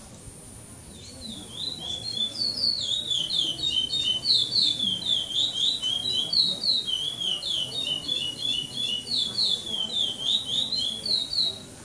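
Pardo curió (chestnut-bellied seed finch) singing the praia clássico song. It is one long, unbroken string of quick, down-slurred whistled notes that starts about a second in and runs for about ten seconds.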